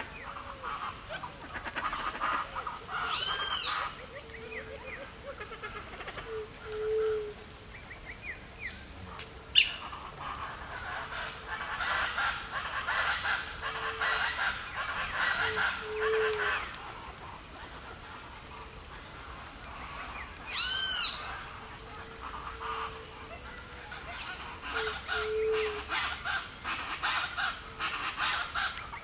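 Wild birds calling in a natural soundscape: a short low hooting note repeats every few seconds, two loud arching calls come about 3 seconds in and about 21 seconds in, and bursts of dense chattering fill the middle and the stretch near the end.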